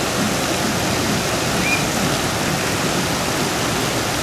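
Steady rushing and breaking water from a wave pool's waves.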